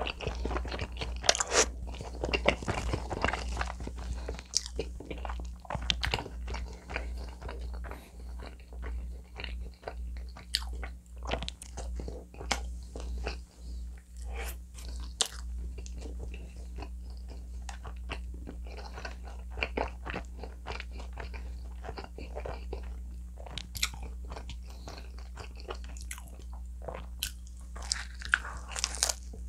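Close-miked chewing of pizza: moist mouth sounds with crisp crunches of crust, thickest in the first few seconds and again near the end as a fresh bite is taken. A low steady hum runs underneath.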